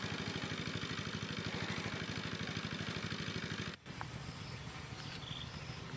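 A small engine running with a steady, fast, even pulse, which cuts off abruptly about four seconds in. A quieter background with a few faint bird chirps follows.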